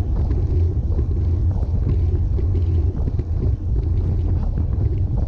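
Wind buffeting a bike-mounted action camera's microphone while riding a road bike at about 38 km/h: a steady low rumble.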